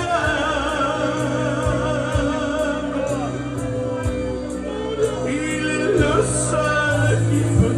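A man singing a French gospel hymn over instrumental accompaniment, holding notes with a wavering vibrato.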